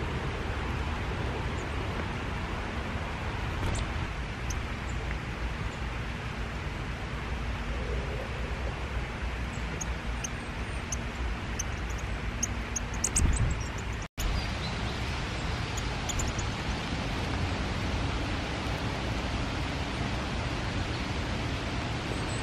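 Steady hiss of rain falling on leaves and foliage, with a few faint high ticks, a dull bump near the middle and a split-second dropout just after it.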